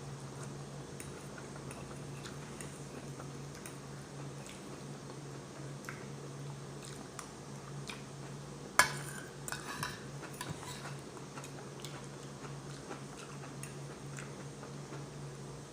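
Cutlery clinking and scraping on a plate while eating, with a sharp clink about nine seconds in followed by a few smaller clicks. A steady low hum runs underneath.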